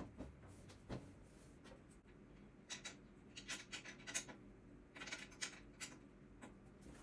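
Faint scratching and rustling with a few light taps, coming in two short clusters, about three and five seconds in.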